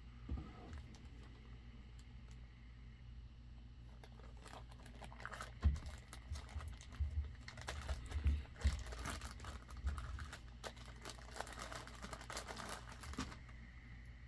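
Packaging being handled and opened: a busy run of small clicks, taps and crinkling from about four seconds in until near the end, over a faint steady low hum.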